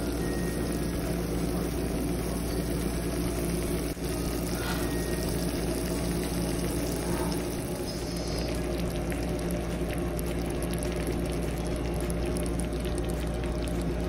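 Chicken masala simmering and sizzling in a covered pot, a steady bubbling hiss over a constant low mechanical hum. Fine crackling grows denser from about eight seconds in.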